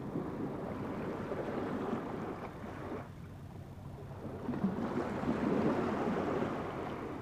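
Ocean surf washing on a rocky shore. There is a lull about three seconds in, then a second swell.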